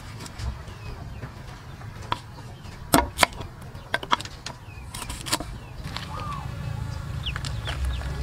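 Kitchen knife chopping through lemongrass stalks onto a wooden cutting board: irregular sharp knocks, a pair of louder ones about three seconds in, stopping a little after five seconds.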